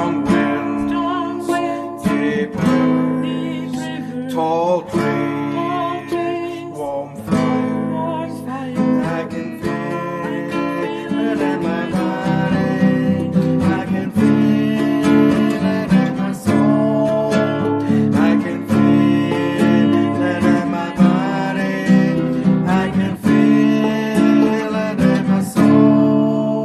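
Acoustic guitar strummed in a steady rhythm: the instrumental part of a song.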